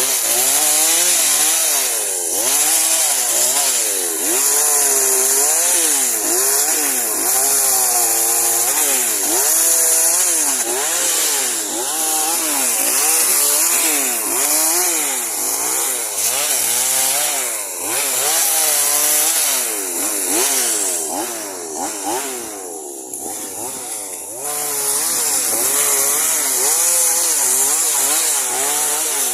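Chainsaw engine running throughout, its pitch rising and falling over and over as it revs and bogs while cutting pine branches. Past the middle it drops lower and quieter for a few seconds before revving up again.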